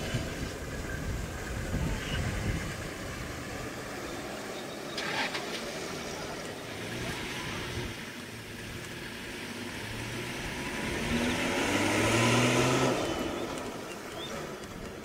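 Safari vehicle engine running, then revving up about eleven seconds in, its pitch rising and the sound at its loudest near thirteen seconds before easing off.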